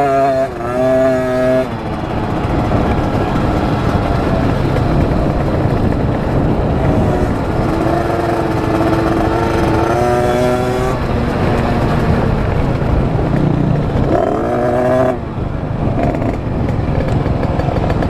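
KTM 50 SX mini dirt bike's small two-stroke engine running under way, its pitch holding steady, then falling and rising again with the throttle, climbing about three-quarters of the way through. Heavy wind noise over the microphone.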